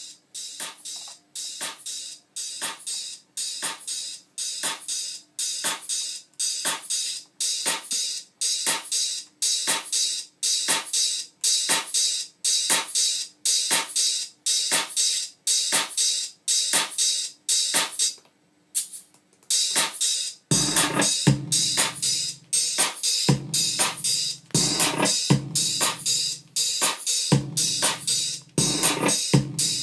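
Electronic drum-machine beat programmed on a Native Instruments Maschine MK2: a steady loop of short, bright percussion hits about two a second. It drops out briefly about two-thirds of the way through, and then a heavy bass drum comes in under the pattern.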